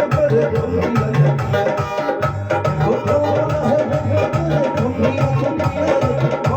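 Instrumental music with a steady tabla-like hand-drum rhythm under sustained melody.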